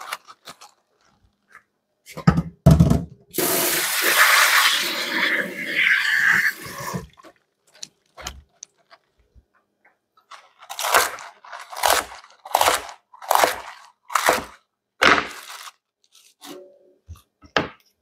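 Water from a kitchen tap running over Chinese cabbage leaves as they are rinsed, for about four seconds, just after a couple of low thuds. Later comes a run of about six sharp knocks, a little under a second apart, with one more near the end.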